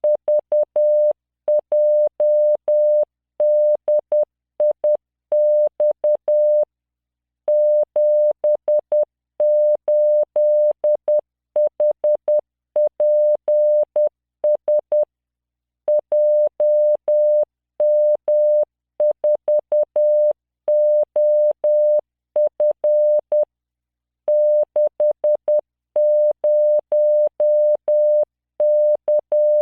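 Morse code practice tone from LearningMorse software: a 600 Hz tone keyed on and off in dots and dashes at 10 words per minute, sending random five-character groups with short pauses between groups.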